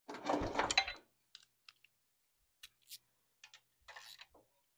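A clatter lasting about a second, then a handful of scattered light clicks: hand tools and bolts being handled while new bolts are started into a pit bike's stator cover.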